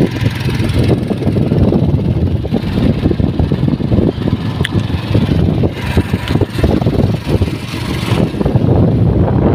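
Motorcycle running steadily as it rides along a road, with wind rumbling irregularly on the microphone.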